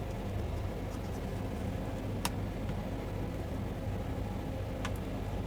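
Steady low background hum with faint noise, broken by a sharp click about two seconds in and two fainter ticks near the end.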